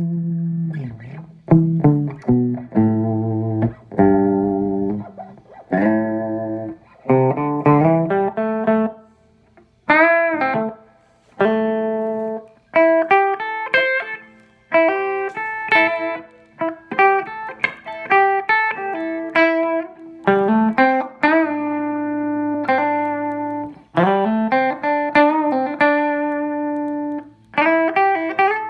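Electric guitar with a Seymour Duncan JB humbucker played through a JTM50-type valve amplifier: loose single-note lead lines with held notes and string bends that rise and fall, with brief pauses between phrases.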